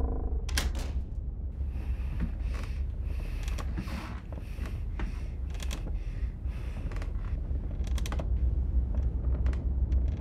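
Creaking and clicking: a run of short creaks through the first several seconds, then a few sharp single clicks near the end, all over a low steady rumble.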